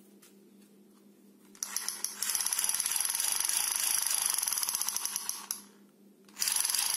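Plastic toy rifle making its rapid rattling firing sound: one burst of about four seconds, then a second burst starting near the end.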